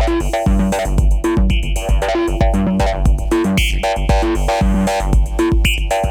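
Arturia MiniFreak synthesizer playing a repeating techno-house pattern of chord stabs and bass over a steady drum-machine kick beat.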